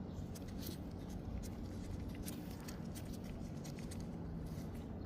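Faint, irregular light clicks and scrapes of hand work as a new PCV valve is threaded into the engine, over a low steady hum.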